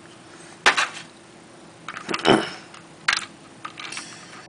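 Plastic LEGO pieces clicking and knocking as the fire truck's roof is handled and pressed back onto its studs: a sharp click under a second in, a short cluster of clicks around two seconds, and another click about three seconds in.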